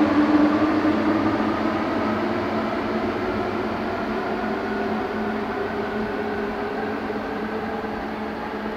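Eurostar Class 373 high-speed train pulling away, its motors whining in several tones that slowly climb in pitch as it gathers speed. The sound fades steadily as the train draws away.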